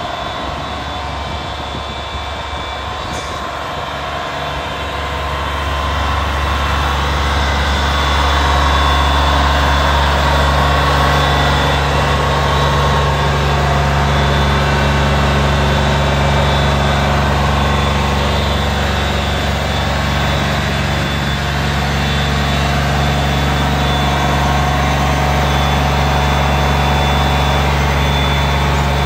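Scania G480 truck's engine running steadily, driving its cab-mounted compressor, which blows air into the bulk cement tanker to pressurise it for discharge. About five seconds in, a deeper steady hum comes in and the sound gets louder, then holds.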